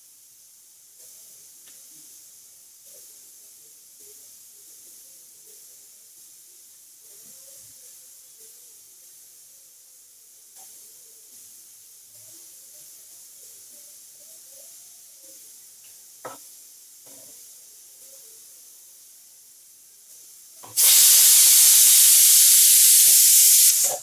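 Prestige pressure cooker on a gas stove giving a whistle: after a faint steady hiss with small rattles, about 21 seconds in the weight lifts and steam jets out with a loud, even hiss for about three seconds. Each such whistle marks full pressure inside the cooker, counted toward the three whistles that cook the dal.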